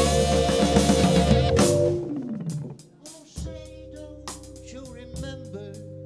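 Live jazz on tenor saxophone, Hammond organ and drums, loud together at first and stopping on a crash about a second and a half in. A note slides down in pitch and the sound drops almost to quiet. From about three and a half seconds in, the organ holds soft chords under short saxophone phrases and light drum taps.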